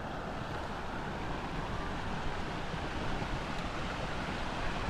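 Steady rushing noise of a waterfall, with wind rumbling on the microphone.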